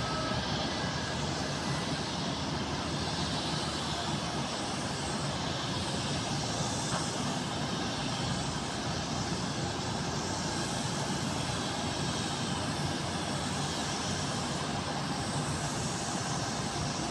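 Steady, even noise of jet airliner engines running on the apron and taxiway, with no single event standing out.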